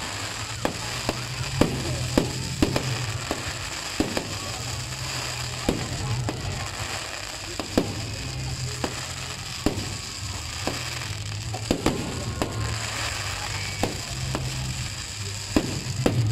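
Aerial fireworks bursting overhead: an irregular run of sharp bangs, often less than a second apart, over a continuous haze of crackle.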